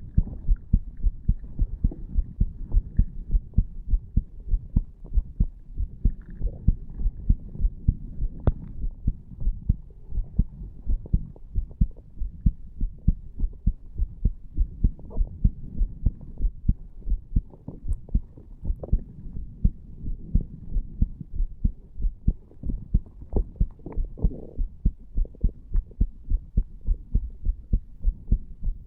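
Human heartbeat recorded on the chest over the tricuspid valve area: a steady, regular run of low, muffled lub-dub thumps.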